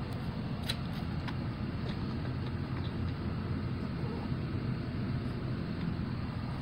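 A steady low rumble or hum, with a few faint clicks about a second in.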